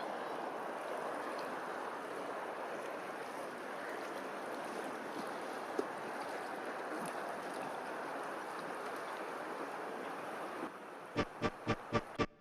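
Steady rushing water. About a second before the end it gives way to music with a pulsing beat of about four strokes a second.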